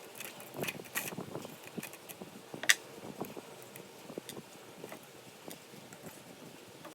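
Scattered light clicks and taps of metal parts and tools being handled on a workbench, with one sharper click about two and a half seconds in.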